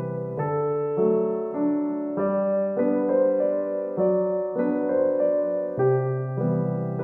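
Background piano music: a slow, gentle melody of single notes and chords that change about every half second to a second.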